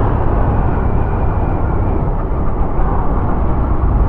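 Yamaha YBR 125G motorcycle ridden at a steady speed: a steady rush of wind on the helmet-mounted microphone over the low drone of the engine and road noise.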